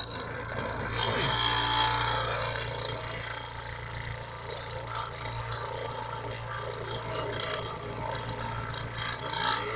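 Homemade mini CNC router engraving plywood: a small printer motor spins a teardrop-shaped Dremel cutter with a steady hum while the bit scrapes through the wood, loudest about a second in.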